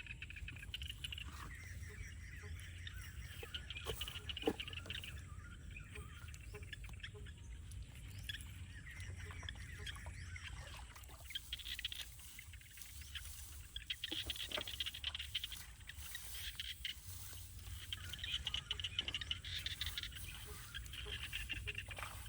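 Outdoor field ambience of small animals calling in repeated chirps and trills, with a few light clicks and a steady low rumble beneath.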